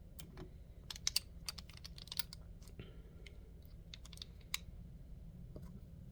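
Light, irregular metal clicks and taps of lock picking tools working in a lock, in quick clusters a second or two in and again about four seconds in, over a low steady hum.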